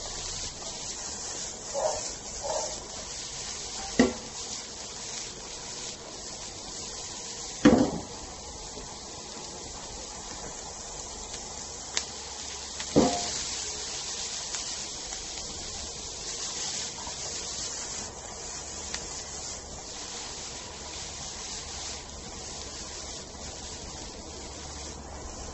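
Shredded cabbage and carrots sizzling in a frying pan over a gas burner, a steady hiss as the pan is tossed. Three sharp knocks come through it, about 4, 8 and 13 seconds in.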